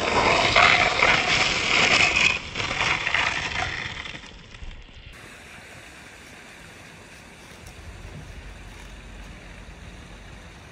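Skis hissing through deep snow, loud and close, for about four seconds. It then gives way to a faint, steady outdoor hiss.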